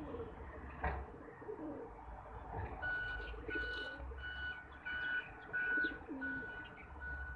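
Feral pigeons cooing low. From about three seconds in, a high beep of one steady pitch repeats about every two-thirds of a second and is the loudest sound.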